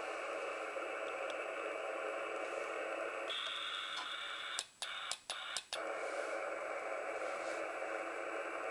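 ICOM IC-703 shortwave transceiver hissing with steady band noise through its narrow single-sideband voice filter, with no station on frequency. A faint high tone comes in about three seconds in, and around the middle the audio cuts out three times with clicks.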